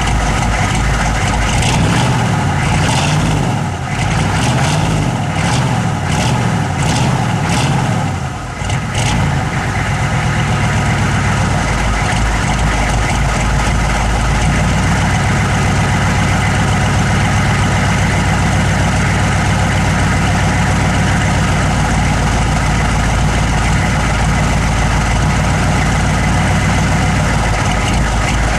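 An engine idling roughly, the uneven idle whose cause the owner is trying to find. For the first ten seconds or so it lurches and dips unevenly, then it settles into a steadier low running note.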